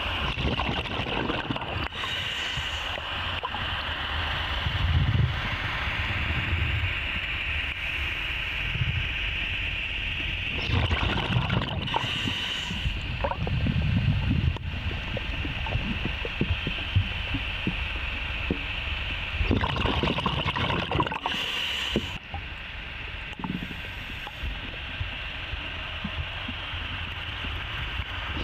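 Scuba exhaust bubbles gurgling in surges every few seconds, muffled through the camera's underwater housing, over a steady hiss.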